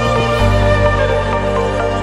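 Background music: a slow instrumental of held notes, its bass note changing about half a second in.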